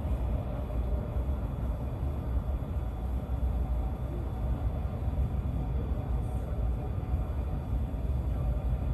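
Steady low rumble of a Chinese high-speed bullet train running at speed, heard inside the passenger car.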